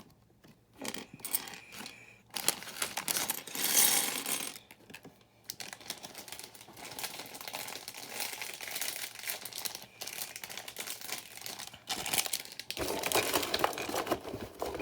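Plastic parts bags crinkling and rustling in irregular spells as loose plastic building-block pieces are handled, with small clicks of pieces against each other.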